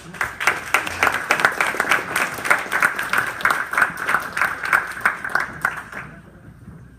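Audience applauding, many hands clapping at once, dying away about six seconds in.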